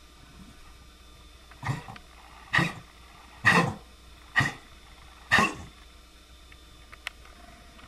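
A pet animal coughing five times, about a second apart, each cough short and forceful.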